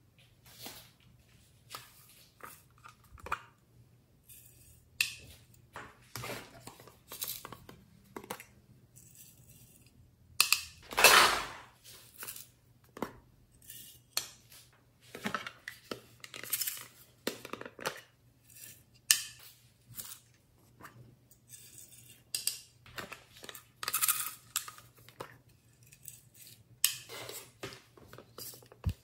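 Small plastic glitter containers being handled and tapped against a glass bowl of slime as glitter is shaken out: irregular light clicks and clinks, with one louder, longer sound about eleven seconds in.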